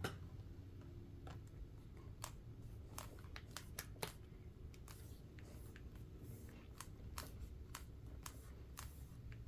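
Faint, scattered small clicks and taps of hands handling a replacement laptop battery as it is set into the open laptop's chassis, over a low steady hum.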